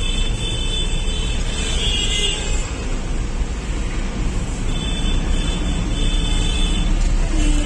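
A car driving slowly in town traffic, heard from inside the cabin: a steady low rumble of engine and road noise. High-pitched tones come and go over it several times.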